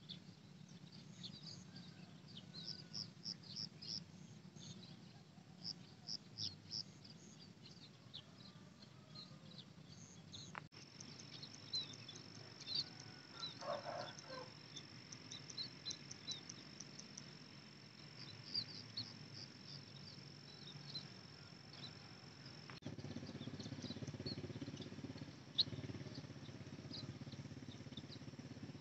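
Faint rice-field ambience: small birds chirp in short high calls throughout. A steady high insect trill runs through the middle part, starting about 11 seconds in and stopping abruptly at a cut about 23 seconds in. A low rumble rises in the last few seconds.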